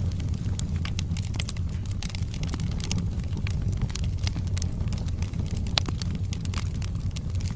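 Wood logs burning in a fireplace: a steady low rumble of the flames with frequent sharp crackles and pops, one louder pop late on.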